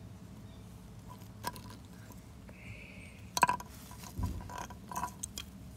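Scattered hard clicks and knocks of plastic toy horse figurines being moved on concrete paving. The loudest comes about three and a half seconds in, with a dull thump just after four seconds and a few lighter clicks after it.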